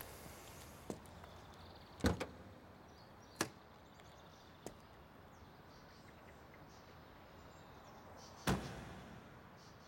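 A handful of sharp knocks over a faint steady background noise. The loudest comes about two seconds in, and a strong one near the end has a short ringing tail.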